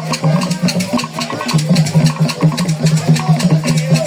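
Traditional Bahumono music: drums and wooden percussion playing a fast, steady beat.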